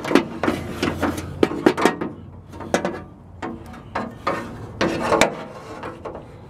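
Camera handling noise: a string of irregular knocks, clicks and scrapes as the camera is moved about and propped against the wooden bed boards and metal frame on the underside of a vehicle.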